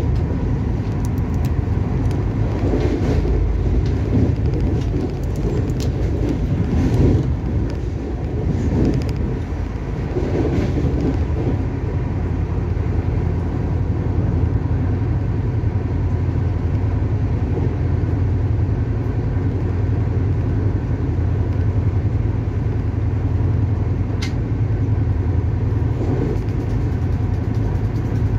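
Steady low rumble of a Shatabdi Express passenger coach running at speed, heard from inside the carriage, with scattered clicks and knocks during the first ten seconds or so.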